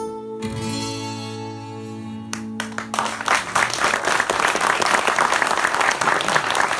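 The last chord of two acoustic guitars ringing out and fading, then audience applause breaking out about three seconds in and carrying on as the loudest sound.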